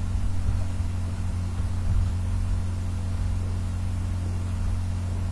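A steady low hum with a faint even hiss, and nothing else; the same background noise that runs under the narration.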